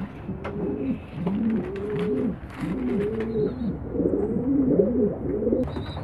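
Several domestic pigeons cooing, their overlapping calls rising and falling, with a few faint clicks among them.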